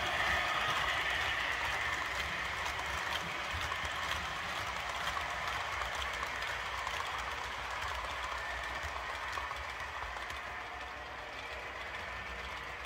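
Dapol Class 59 model diesel locomotive running under load with a rake of heavy metal hopper wagons. A steady whir of the motor and the wheels rolling on the track, with faint clicks, fading slowly as the train passes by.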